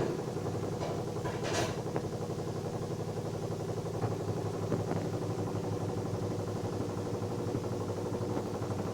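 Washing machine running: a steady motor hum with a fast, even pulsing and a few light knocks.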